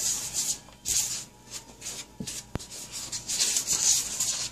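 Dry flour mix being worked by hand and a wooden stirring stick in a plastic tub: a run of soft rubbing swishes, with one sharp click about two and a half seconds in.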